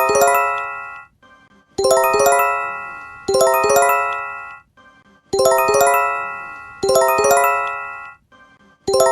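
Japanese emergency alert chime repeating: a bell-like three-note rolled chime that rings and fades, sounded twice about a second and a half apart, then a brief pause before the pair comes again.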